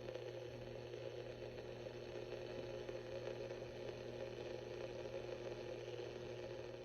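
A steady low hum over a faint hiss, holding level throughout.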